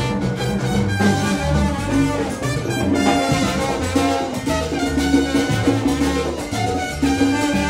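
Live salsa band playing, with brass over a bass line and drums.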